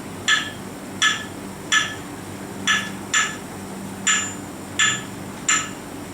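A pair of claves struck in the 2-3 clave rhythm: sharp, ringing wooden clicks in a group of two followed by a group of three, the pattern repeating.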